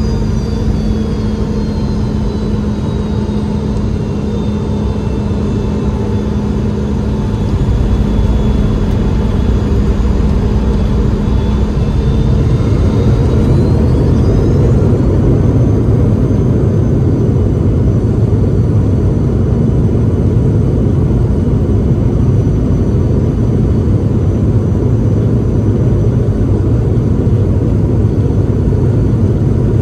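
Cabin noise of a Boeing 717-200 rolling along the runway after landing, dominated by the Rolls-Royce BR715 turbofan mounted just behind the window: a steady rumble with a high whine. The whine falls in pitch at first, then rises again about halfway through as the rumble grows louder.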